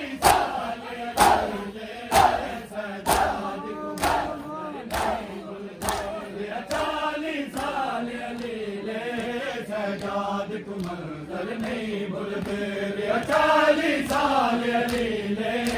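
A group of men chanting a noha in unison, with rhythmic matam (hands beating on chests) keeping time at about one beat a second. The beats fade out about six seconds in, and the chanting carries on alone, swelling near the end.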